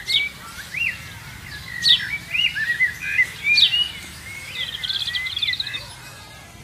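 A songbird singing: three sharp, high notes that sweep downward, about two seconds apart, with warbled gliding notes between them and a rapid trill about halfway through.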